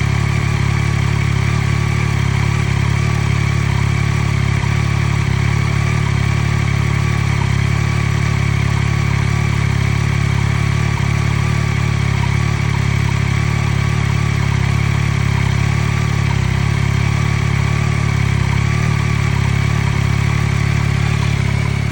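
2023 Yamaha XSR900's 890 cc inline-three engine idling steadily after a cold start, with the ticking noise whose normality the owner questions.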